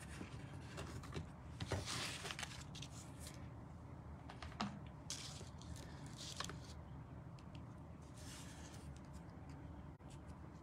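Faint rustling and sliding of cardstock and paper pieces being handled on a craft mat. It comes in several short bursts, with a couple of light taps.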